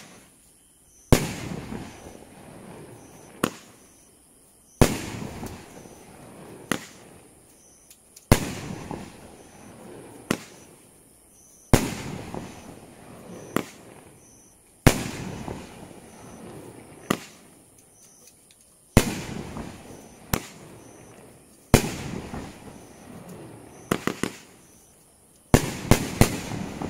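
Consumer fireworks cake (Power Series White Out, a 10-shot all-white strobe cake) firing shot after shot: each launch thump is followed about a second later by a sharp bang as the shell breaks, trailing off in noise that fades over a couple of seconds. About eight shots go off, roughly every three and a half seconds, with a few quick reports close together near the end.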